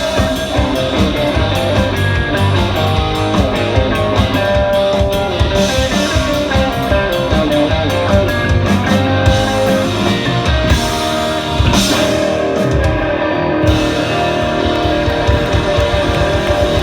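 Rock band playing an instrumental passage of the song after the vocals end, electric guitars strummed over drums, with no singing.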